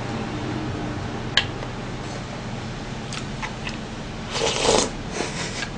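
Eating sounds of someone taking pork soup broth from a bowl with a spoon: a sharp click of the spoon on the bowl, a few small clicks, then two sips or slurps near the end.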